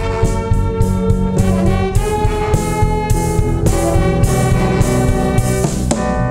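Big band playing live: a brass section of trumpets, trombones and saxophones holding chords over a drum beat, with keyboard.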